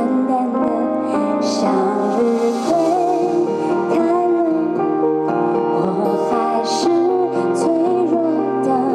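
A woman singing a pop song live into a microphone over instrumental accompaniment, her held notes wavering with vibrato.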